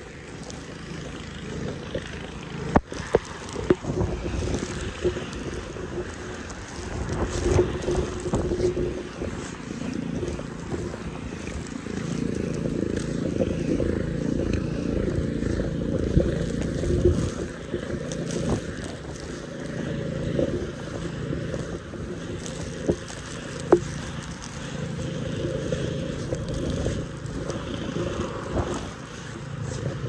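Strong snowstorm wind buffeting the microphone: a low rushing rumble that swells and eases in gusts, with a few sharp clicks, two just after the start and one about two-thirds of the way through.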